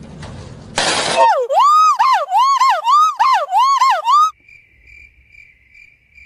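Gibbon calling in a run of about seven loud rising-and-falling whoops. It comes after a short burst of hissing noise about a second in, and a faint steady high tone follows near the end.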